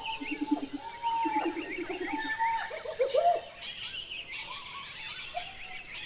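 Several wild birds calling together: high chirps and twitters throughout, two bursts of a low, rapid rattling trill in the first two seconds, and a few rising whistled calls about three seconds in. The calling thins out over the second half.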